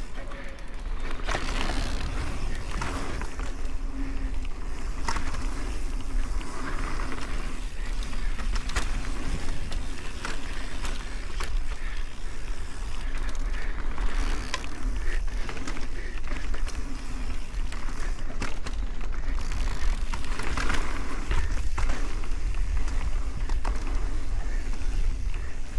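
Mountain bike riding down a dirt trail: knobby tyres rolling over dirt and roots, with frequent rattles and knocks from the chain and frame, over steady wind rumble on the helmet-camera microphone.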